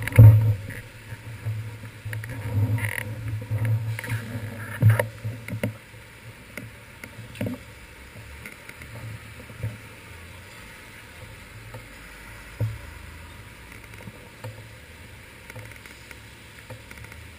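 Muffled city traffic and road noise on wet streets, picked up through a handlebar-mounted GoPro Hero 2 on a bicycle: a low rumble with scattered knocks and bumps, busier and louder over the first six seconds, then a steadier low background.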